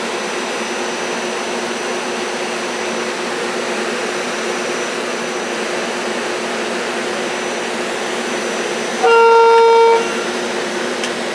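Steady hum and blower noise from a SEPTA Silverliner IV electric commuter railcar, then a single horn blast of about a second near the end. The lead car's horn is foul-sounding.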